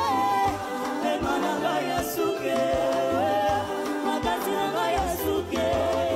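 A young girl singing a gospel song into a microphone over a band accompaniment, with a sustained sung melody over a steady bass line and drum strokes.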